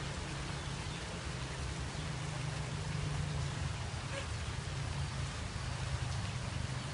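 Steady rain falling, an even hiss with scattered drop ticks over a continuous low rumble.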